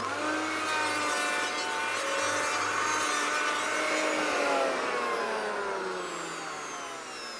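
Bosch GHO 26-82 D electric hand planer running as it cuts a 45-degree bevel along the edge of a wooden door in one slow pass: a steady motor whine over the rasp of the blades shaving wood. From about five seconds in, the pitch slowly falls and the sound gets quieter.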